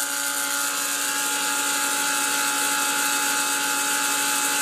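CNC-converted Grizzly G0704 mill running its spindle through a belt drive: a steady whine with several held tones over a hiss. The belt drive is a little noisy because the spindle and motor pulleys wobble, their bores having been bored slightly oversize.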